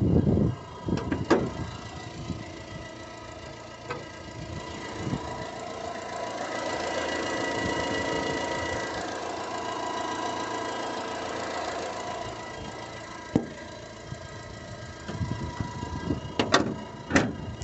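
Fiat Palio Attractive engine running steadily, swelling louder for a few seconds in the middle, with a few sharp clicks and knocks now and then; this is the abnormal engine noise the owner is showing.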